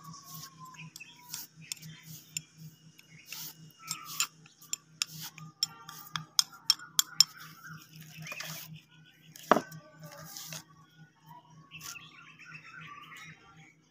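Metal utensil clinking and knocking against cookware, a quick irregular run of sharp clicks with one louder knock about two-thirds of the way through, over a steady low hum.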